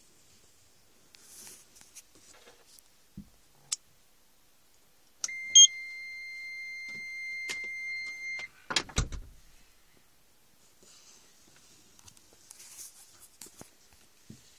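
An electronic buzzer sounds one steady, high beep about three seconds long, with a brief sharper blip near its start, as the dashboard trip computer powers on. A few sharp clicks and a short low thump follow just after it stops.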